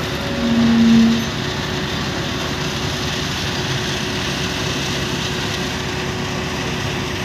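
Heavy diesel machinery running steadily: a tracked excavator close by and the truck hauling a paver on a low trailer, with a constant whine. A loud, short, steady low tone sounds about half a second in and lasts about a second.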